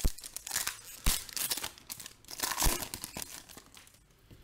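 A Panini Optic basketball card pack's foil wrapper being torn open and crinkled by hand, with a few sharper crackles. The sound fades out after about four seconds.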